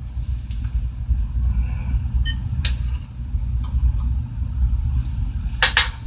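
A porcelain crucible is set onto the pan of an analytical balance, with a few light clicks and a short clink about two seconds in and two sharper clicks near the end. A steady low rumble runs underneath.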